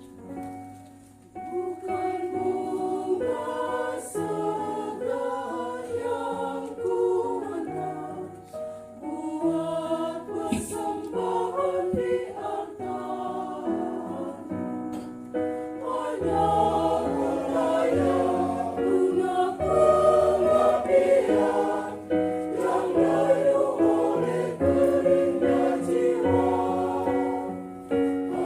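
Church choir singing a hymn together, coming in about a second in and growing fuller and louder about halfway through.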